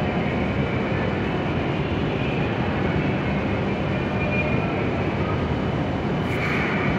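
W7 series Shinkansen train standing at the platform, its onboard equipment running with a steady hum and rush of noise. A brief hiss comes about six seconds in.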